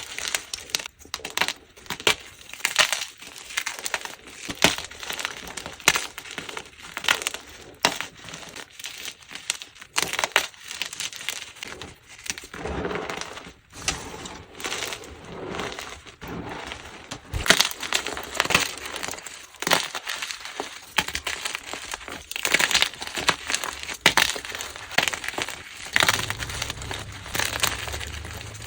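Plain gym chalk blocks being crushed and crumbled into powder, a dense run of irregular dry crunches and crumbles.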